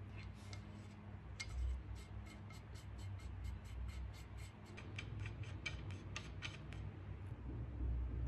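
Brass end cap being screwed by hand onto the threaded stud of a steel war hammer head: a run of small metallic clicks and scrapes, a few a second, louder from about five seconds in, then stopping.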